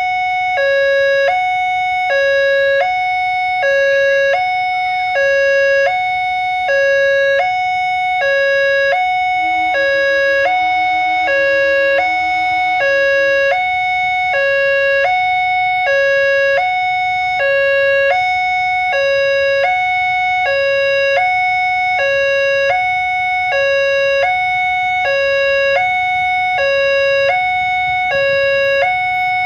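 Railway level-crossing warning siren sounding its two-tone alarm: a high and a low tone alternating evenly, about one high-low cycle a second, without a break.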